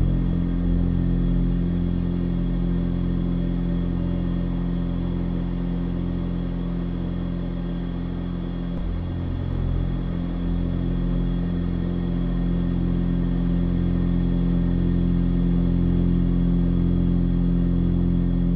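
Ambient drone music: low synth tones held steadily under a faint hiss, the bass notes shifting about nine seconds in.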